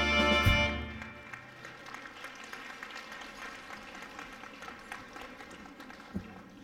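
Live big band with brass and saxophones ends a Latin number with a loud final chord about half a second in. Audience applause follows, with a single thump near the end.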